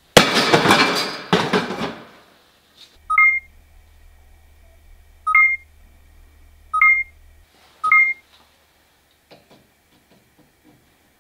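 A loud rushing, clattering noise for about the first two seconds, then four short electronic beeps, each two tones at once like telephone key tones. The beeps are sound effects of an on-screen subscribe-button animation being clicked through.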